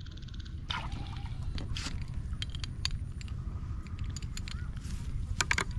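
A hooked fish splashing at the pond surface as it is jerked out on a bamboo pole, then a run of irregular slaps and rustles as it thrashes on the line, with a cluster of sharp slaps near the end. A steady low rumble runs underneath.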